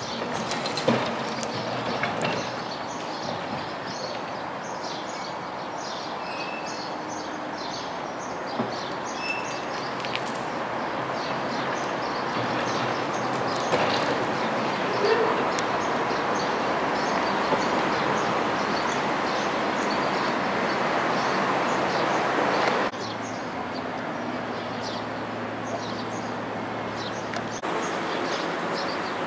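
Vintage tram rolling slowly over yard tracks, a steady noise that swells gently through the middle, with small birds chirping over it. The sound drops suddenly a few seconds before the end.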